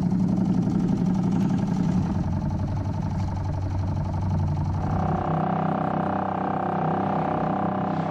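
Small boat engine running steadily with a fast, even pulse; its tone changes about five seconds in, taking on a higher whine.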